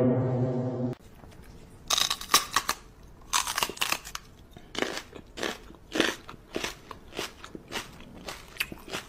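Wet kissing and lip smacks, short and irregular, one or two a second, from a woman kissing a small dog that licks at her lips. Before them, a loud low buzzing tone cuts off about a second in.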